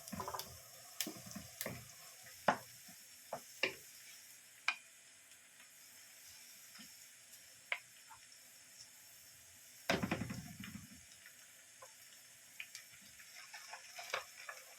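Kitchen preparation sounds: scattered clinks and knocks of utensils, with water from a sink and a louder, fuller sound about ten seconds in.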